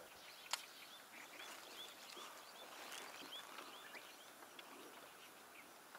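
Faint outdoor quiet with a bird repeating a short high chirp, about three a second, for a couple of seconds. One sharp click comes about half a second in.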